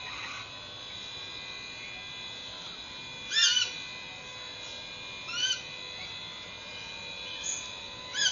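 An animal calling three times, each a short wavering high call about two seconds apart, over a faint steady high whine.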